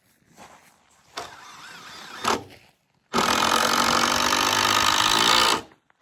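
A power tool runs at a steady speed for about two and a half seconds in the second half, then stops abruptly; it is the loudest sound here.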